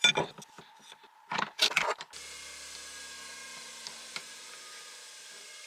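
Handling noise from the parts of a cordless angle grinder: a few sharp knocks and scrapes of hard tool parts. About two seconds in they stop and a steady faint hiss takes over.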